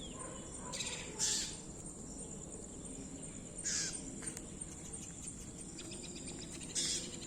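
Drongo giving short, harsh distress calls, four in all and a few seconds apart; the bird is injured after a fight with a frog and a dog.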